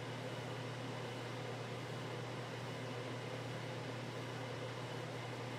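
Steady low hum with a hiss over it: plain room tone that does not change.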